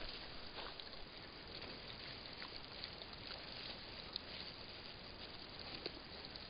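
Night wildlife-camera recording: a steady hiss with faint, scattered rustles and small clicks, as of an animal moving and foraging on the ground.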